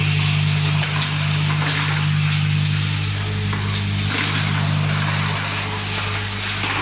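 Walnut cracking and sorting machinery running: a steady electric-motor hum under a dense, continuous rattle of cracked walnut shell and kernel pieces moving through the line.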